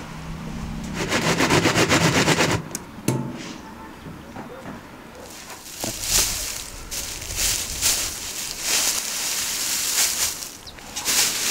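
A fast, loud rattle of metal on metal lasting about a second and a half, as the metal bars over the steel buckets are shifted. It is followed by dry straw rustling and crackling as a straw bale is pulled apart by hand and tossed.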